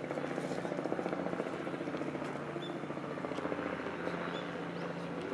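A steady mechanical drone with a rapid, even flutter, like an engine or rotor heard from afar, with a few faint high chirps over it.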